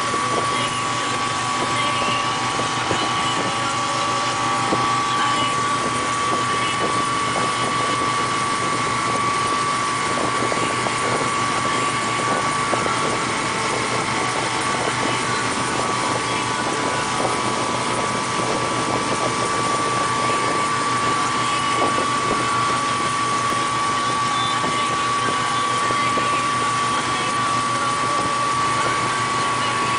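Tow boat's engine running steadily at towing speed, with a constant high whine over a rush of wind and water.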